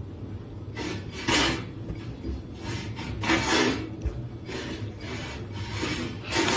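A series of rasping, scratching strokes, each about half a second long and roughly a second apart.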